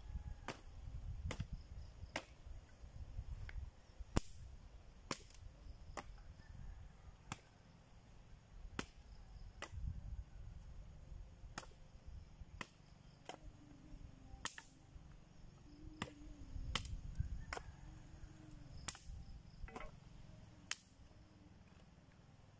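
Bolo machete chopping through dry, rain-soaked and rotten branches: sharp single chops at an irregular pace, about one or two a second, with a low rumble underneath.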